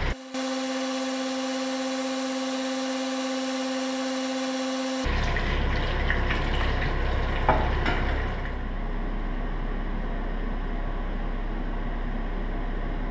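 A steady pitched hum that cuts off abruptly after about five seconds. It is followed by hot cooking oil sizzling in a frying pan with a few light clicks of chopsticks, then a steady low hiss.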